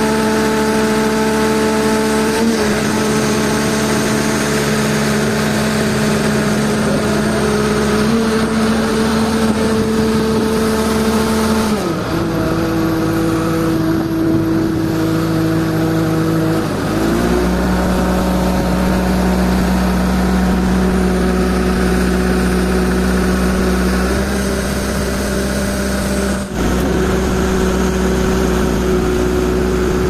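Diesel engines of truck-mounted cranes running at raised revs while hoisting a precast concrete bridge girder. The engine speed steps up and down several times, and there is one brief knock near the end.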